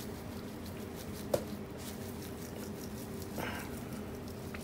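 Panko breadcrumbs shaken from a canister, faintly pattering onto macaroni in a glass dish, with one sharp click about a second and a half in and a soft swish near the end.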